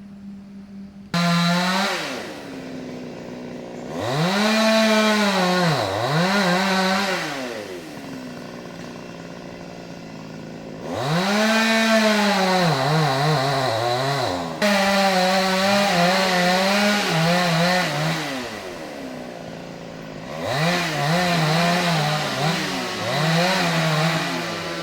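Two-stroke chainsaw starting up about a second in, then revved hard three times, its pitch rising and sagging under load as it cuts wood, dropping back to a lower, steady idle between the spells.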